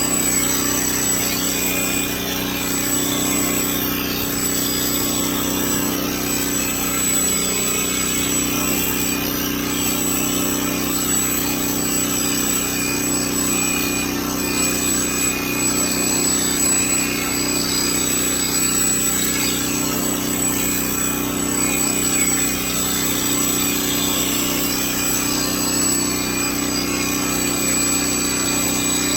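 Electric hair clipper running steadily: a continuous motor hum with a thin high whine, unchanging throughout.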